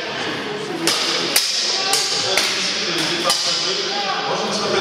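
Steel two-handed swords clashing and striking plate armour: several sharp metallic hits at irregular intervals, over background chatter of voices.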